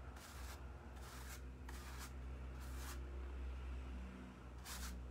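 Paintbrush strokes of sealer over a textured lampshade: a run of short, faint swishes about once a second, over a low steady hum.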